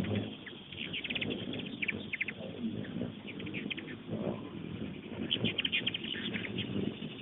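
Hummingbirds chattering in quick bursts of high chips, the squabbling calls of birds chasing each other off a busy feeder, in two clusters early and again about five seconds in, over a low steady rumble.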